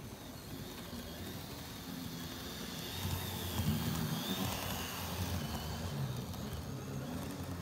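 Märklin Z scale model ICE train running on the track, its small motor and wheels giving a low hum and rumble that grows louder about three seconds in as it passes close, with a faint high whine.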